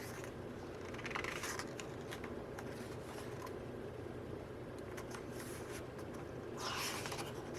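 Soft rustling and sliding of paper as the pages of a glossy photo booklet are handled and turned, with a few faint clicks, over a steady low room hum. The rustling is strongest about a second in and again near the end.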